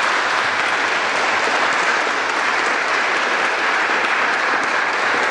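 An audience applauding steadily, many hands clapping together into an even wash of sound.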